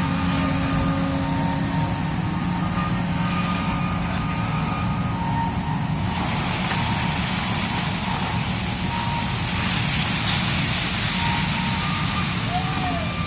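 Heavy construction equipment engines running steadily: a low drone with a thin, steady whine above it.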